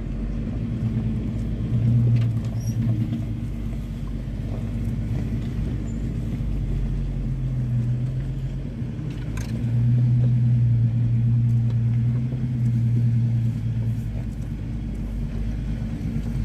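Off-road vehicle's engine heard from inside the cab, running at crawling speed on a rough dirt trail. It grows louder briefly about two seconds in and again for several seconds about ten seconds in, as the throttle is opened over the uneven ground.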